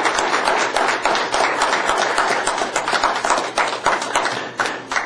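A small group of people applauding, many quick hand claps overlapping.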